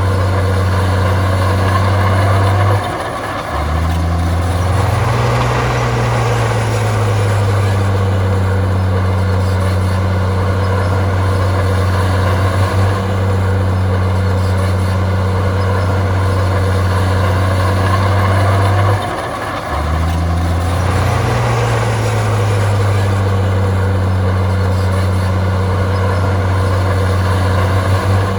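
Heavy earthmoving machine's diesel engine running steadily. Twice, about 3 s and about 19 s in, the engine note drops sharply, then revs back up and settles, as under a change of load.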